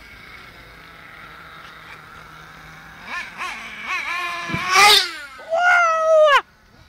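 Small nitro RC truck engine of an HPI Trophy Truggy revving hard in high-pitched bursts: a couple of short blips, then a loud rising rev and a held, slowly falling whine that cuts off abruptly near the end.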